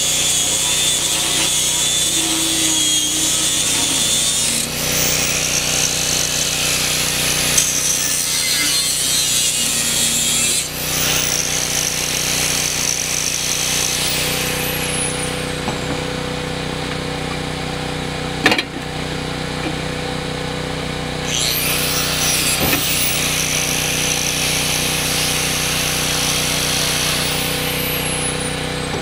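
A DeWalt 7-amp angle grinder with a thin cut-off disc cutting through the steel shell of a hermetic AC compressor, giving a high, hissing grinding whine. The grinder is stopped and restarted several times, spinning up and winding down, and a sharp click sounds about two-thirds of the way through.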